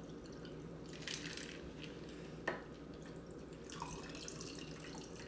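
A shaken cocktail poured from a metal cocktail shaker into a glass over large ice cubes: a thin trickling and dripping stream, with one sharp click about two and a half seconds in.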